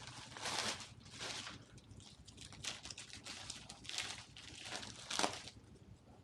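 Package being opened by hand: irregular bursts of rustling and crinkling packaging, about five louder ones, the loudest a little past five seconds in.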